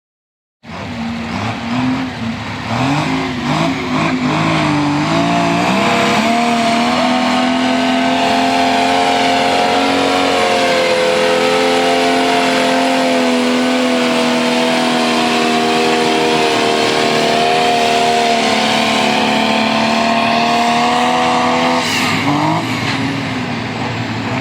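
Tractor engine run hard, likely under load in a pull: it comes in suddenly, climbs in pitch in steps over the first few seconds, holds a steady high speed for about fifteen seconds, then drops off near the end.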